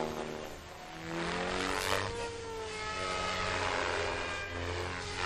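SAB Goblin 500 electric RC helicopter in flight: the whine of its motor and spinning rotor blades, rising and falling in pitch as it manoeuvres, briefly dipping under a second in and swelling again around two seconds in.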